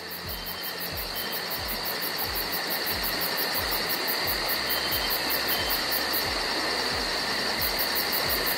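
A steady, shrill night chorus of calling insects, with regular low thumps about twice a second underneath.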